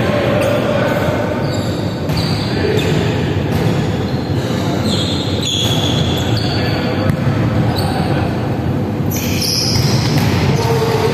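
Indoor volleyball in play: the ball being struck and slapping the wooden court floor, with sneakers squeaking and players calling out, all echoing in a large sports hall.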